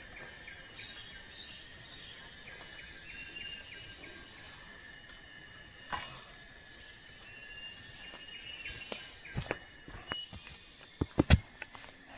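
Forest ambience: a high, steady insect drone and repeated short bird chirps. A few sharp knocks near the end are the loudest sounds.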